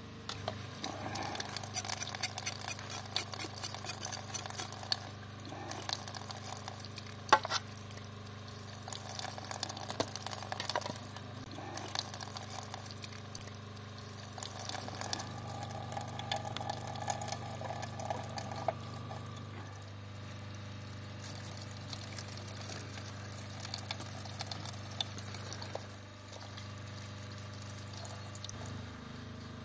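Cooking sounds: a utensil clicking and scraping against a pot or pan while food is stirred, with liquid sounds, over a steady low hum. The clicks are thickest in the first half, with one sharp knock about seven seconds in.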